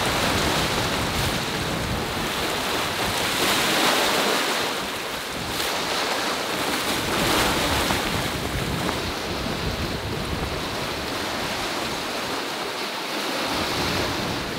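Rough sea and the churning wake of a sailboat under sail, a steady wash of breaking water with wind buffeting the microphone. The rush swells louder a couple of times as waves break near the stern.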